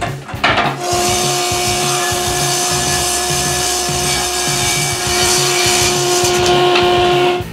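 Table saw running and ripping a pallet-wood board: a steady motor-and-blade whine with the hiss of the cut starts about a second in and stops near the end. Background music with a beat plays underneath.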